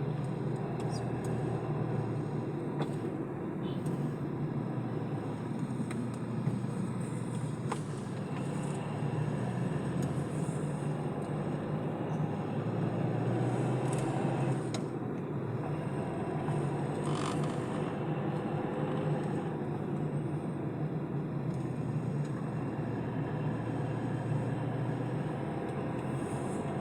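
Steady engine and road noise of a car climbing a hill road, heard from inside the cabin.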